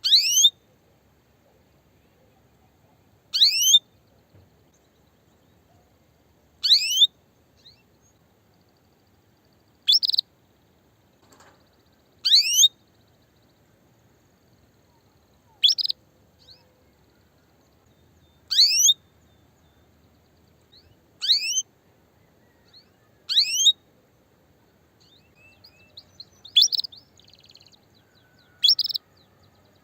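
Female canary giving short single calls, each a quick high sweep falling in pitch, about one every two to three seconds, eleven in all, with a few faint chirps between them near the end. It is the mating call of a hen canary ready to breed, calling to males.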